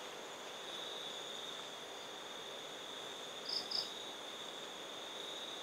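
Insects chirring in a steady, continuous high-pitched trill, with two short, higher chirps about three and a half seconds in.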